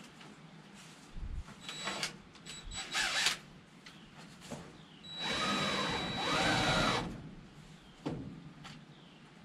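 Cordless drill run in a few short bursts, then in one longer run of about two seconds with a steady high whine and pitch that rises and falls as the trigger is worked, driving into the wood framing. A single knock follows near the end.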